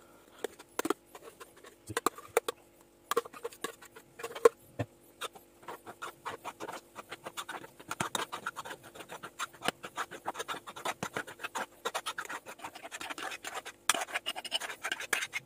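A spoon scraping and tapping against a metal saucepan while folding a soft carrot and whipped egg-white mixture. The strokes are sparse at first and become quicker and steadier after a few seconds. Near the end comes louder scraping as the mixture is scraped out of the pan into a glass baking dish.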